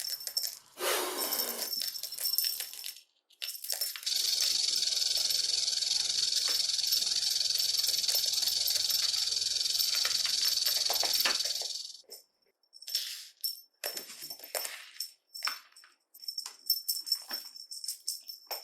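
Snake hissing and rattling sound effect: one long steady hiss lasting about eight seconds, with shorter irregular hisses and rattles before and after it.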